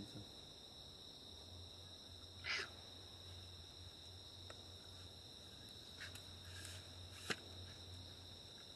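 Steady high-pitched drone of insects in the vegetation, two even tones held throughout. About two and a half seconds in comes a brief higher call or chirp, and a single sharp click comes near the end.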